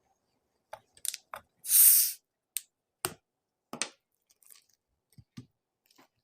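A plastic 2-litre soda bottle of carbonated Limca being opened: a few clicks as the cap turns and its seal breaks, then a short loud hiss of escaping gas about two seconds in, followed by scattered clicks and taps of the bottle and cap.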